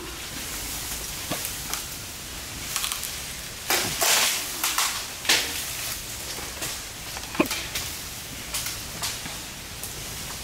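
Irregular crackling and rustling of branches and leaves, with scattered sharp snaps; the loudest bursts come about four and five seconds in.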